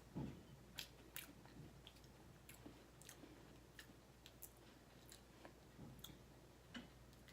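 A person chewing crisp cream-filled vanilla wafers, a scattered string of faint, sharp crunches and mouth clicks.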